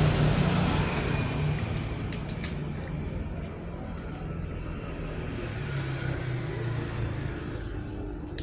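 Low engine rumble of a passing road vehicle, loudest at the start and fading away over several seconds.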